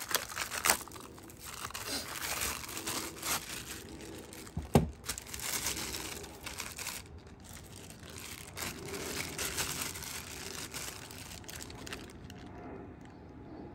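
Clear plastic bags crinkling as silicone intake couplers are unwrapped and handled, with one sharp knock about five seconds in.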